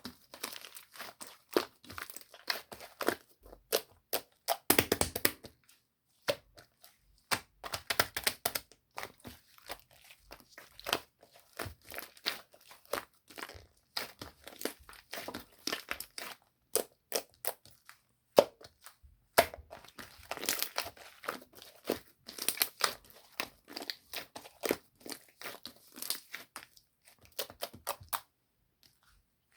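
Slime being squeezed, stretched and pressed by hand, giving rapid, irregular crackles and small pops, with a few short pauses.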